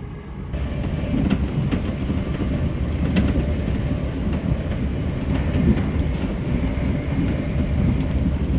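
Class 387 electric multiple unit running at speed, heard from inside the carriage: a steady rumble of wheels on rail with occasional faint clicks from the track. The noise steps up in loudness about half a second in.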